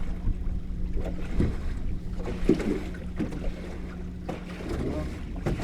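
A small boat's motor running with a steady low hum as the boat moves through choppy, wind-driven waves, with a few knocks of water against the hull and wind on the microphone.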